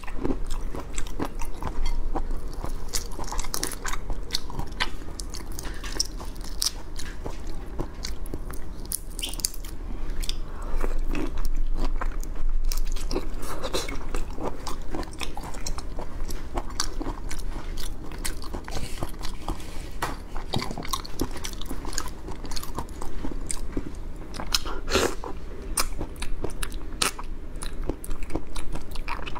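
Whole cooked prawns being eaten: shells cracking and crunching as they are pulled apart and bitten, with chewing, in a quick run of small sharp crackles, loudest about 25 seconds in.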